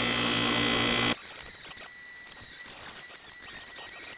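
Electric bench buffer running steadily as a knife blade is polished against its spinning buffing wheel. About a second in, the sound cuts off abruptly to a quieter, thin steady whine from the buffer.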